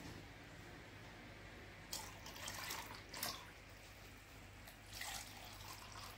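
Red sherbet poured from a plastic jug into a plastic cup, a faint splashing trickle that comes in two spells, about two seconds in and again about five seconds in.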